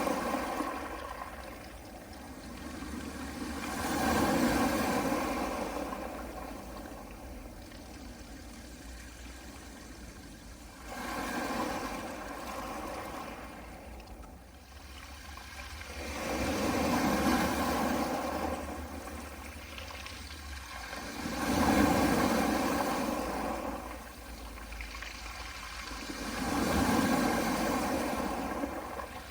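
Soft sea waves washing onto a pebble beach, each one a rush of noise that swells and falls away every four to six seconds, about six in the stretch, over a steady low rumble.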